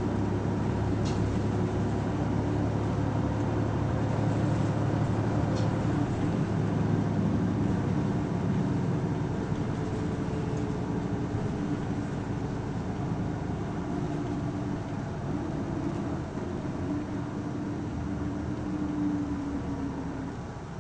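Isuzu Erga city bus (PKG-LV234L2) running along with steady diesel engine and drive noise, swelling a few seconds in and easing off near the end.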